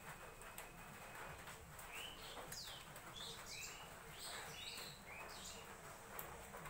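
A bird calling in the background, a run of short chirps curving up and down in pitch, starting about two seconds in and lasting about three seconds. Faint, over a steady low hiss.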